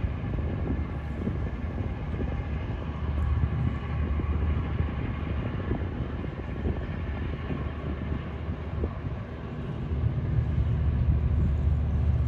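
A towboat's diesel engines drone low and steady across the water. The drone grows louder about ten seconds in as the boat draws nearer.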